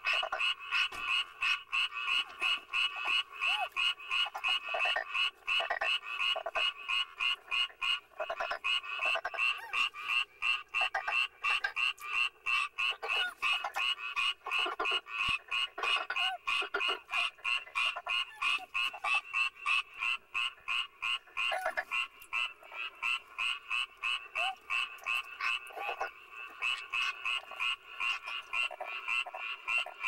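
A dense chorus of frogs croaking, rapid pulsed calls overlapping with no pause.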